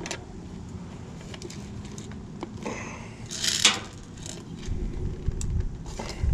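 Handling of an airsoft PPSh-41 2,000-round drum magazine as it is opened by hand: scattered small clicks and a brief scraping rattle about three and a half seconds in.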